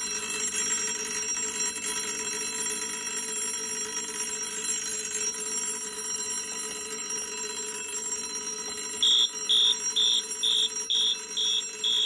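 Old-fashioned electric vibrating doorbell ringing continuously, its metal hammer rapidly striking a metal gong. About three-quarters of the way through, a separate high beeping, about two beeps a second, sounds over it.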